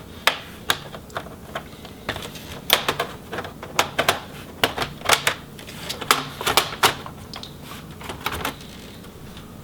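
Plastic clips of an MSI GT72 laptop's bottom cover snapping loose as it is pried up along the seam: a quick, irregular run of sharp clicks that stops about a second before the end.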